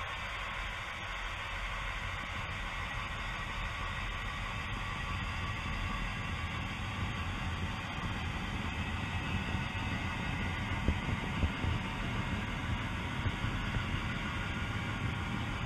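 Model train running along layout track, picked up by a camera riding on it: a steady hiss and hum with a low rumble that grows, and a few sharp clicks of the wheels over rail joints in the second half.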